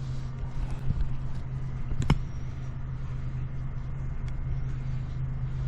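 Steady low machinery hum, with scattered light clicks and one sharper click about two seconds in.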